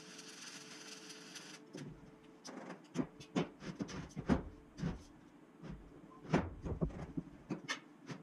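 Electric welding arc crackling and hissing as it welds a steel frame, stopping about a second and a half in. Then a run of irregular knocks and clanks as the steel frame is handled and turned over on the workbench.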